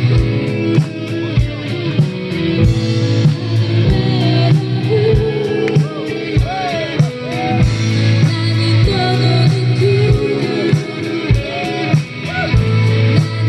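Live band playing amplified rock-pop through stage speakers: electric guitars, bass and a drum kit with a steady kick-drum beat, and a sung melody over it from about four seconds in.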